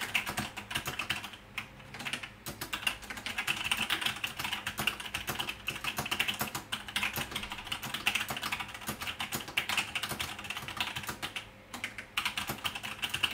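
Logitech G613 mechanical keyboard with Romer-G tactile switches being typed on quickly, a dense clatter of key clicks with a brief pause near the end.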